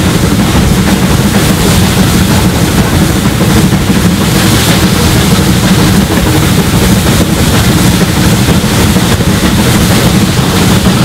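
SR Merchant Navy class three-cylinder steam locomotive working hard up a 1 in 60 gradient: a loud, continuous, rapid exhaust with a heavy low rumble, heard close up from the leading coach behind the tender.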